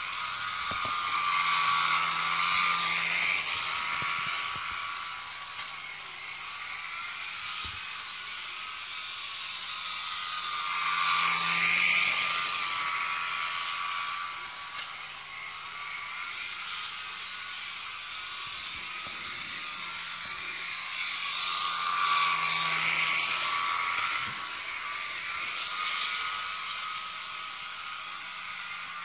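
Jouef model train locomotive running laps on its track, its freshly serviced small electric motor and gears whirring with a light rattle of wheels on the rails. The sound swells three times, about ten seconds apart, as the train passes close.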